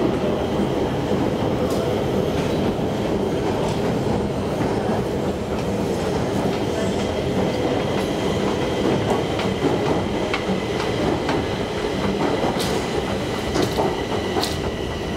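1974 O&K escalator running: a steady rattling rumble from the moving steps, with a thin high whine above it and a few clicks near the end.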